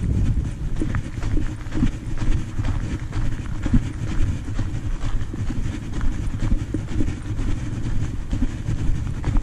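Footsteps on a gravel path, repeated uneven impacts over a steady low rumble of wind buffeting the body-worn camera's microphone.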